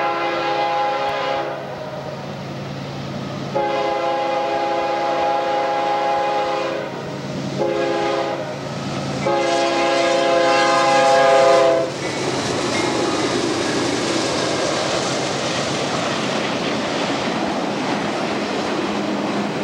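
Air horn of a GE ES44DC locomotive leading a CSX auto rack train, blowing the long-long-short-long grade-crossing signal. The final long blast is the loudest and cuts off about twelve seconds in. The locomotives and auto rack cars then roll past at speed, with a steady rush and wheels clicking over the rail joints.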